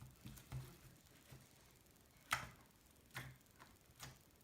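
Slime being played with by hand, giving a few sharp clicking snaps, three of them clearer than the rest, spread over the second half.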